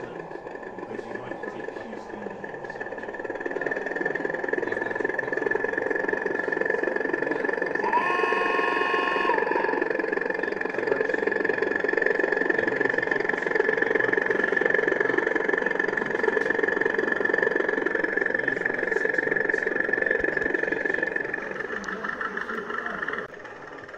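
A sound-fitted model diesel locomotive's engine sound playing through its small speaker, swelling up a few seconds in and running steadily. Its horn sounds once for about a second and a half near the middle, over crowd chatter.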